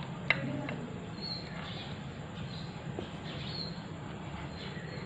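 Pizza cutter wheel rolling through a soft naan on a ceramic platter, with a sharp click against the plate about a third of a second in and a fainter one about three seconds in.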